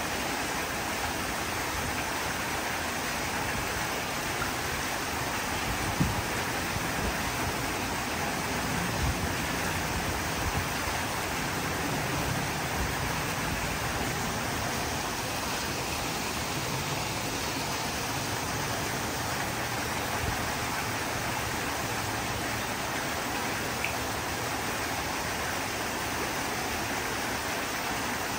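A small waterfall in a rock-garden fountain splashing steadily into its pool, an even rushing hiss. A few soft low thumps come through now and then.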